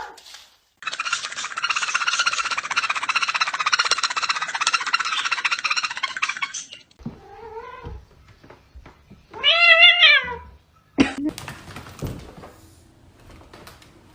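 A cat crying: a long, rough, wavering yowl lasting several seconds, then two meows, the second louder.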